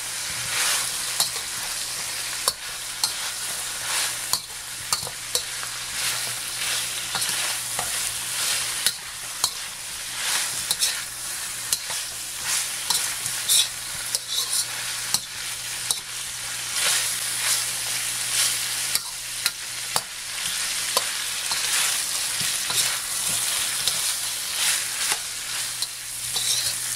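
Chicken pieces and garlic sizzling in hot oil in a wok, browning, while a metal spatula stirs them, scraping and clacking against the pan many times.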